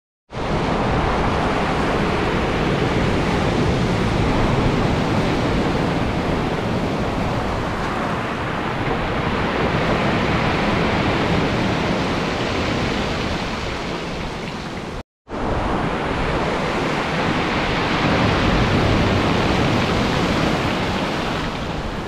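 Sea surf breaking and washing up a pebble beach, a continuous rushing of foam over stones that swells and eases with each wave. It cuts out for a moment about two-thirds of the way through.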